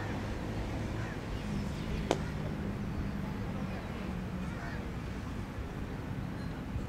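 Steady low hum and rumble of outdoor background noise, broken by a single sharp crack about two seconds in.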